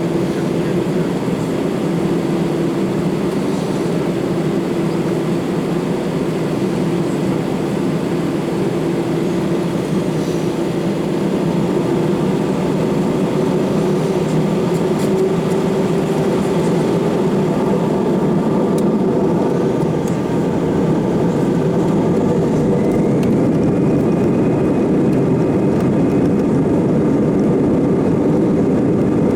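Airbus A319's CFM56 jet engines heard from inside the cabin: a steady, loud rumble with a faint whine that rises in pitch about twenty seconds in, the overall sound growing slightly louder.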